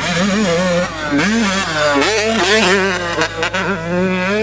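Yamaha YZ125's 125cc single-cylinder two-stroke engine with a Pro Circuit exhaust, revving hard, its pitch rising and falling again and again with the throttle.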